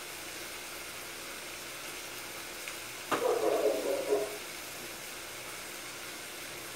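Chicken thighs sizzling steadily as they fry in a pot, with a click and a louder sound lasting about a second, about three seconds in.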